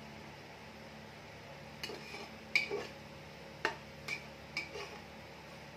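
A spatula scraping and knocking against the inside of a metal pressure-cooker pot as mutton is stirred in thick, fried masala. The strokes are short and irregular, starting about two seconds in, over a low steady hum.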